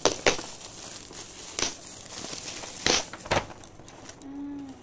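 Gift packaging being handled and unwrapped, crinkling in about five sharp rustles spread across the few seconds.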